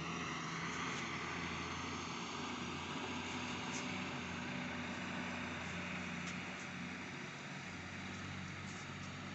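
Heavy truck engine running steadily, with a low, even engine note over road noise.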